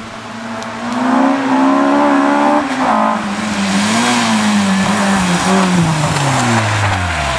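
Honda Civic hatchback rally car driven hard: its engine revs climb, drop sharply about two and a half seconds in, then rise and fall through the bend. The pitch falls away steadily near the end as it passes close by, with tyre hiss on the wet tarmac.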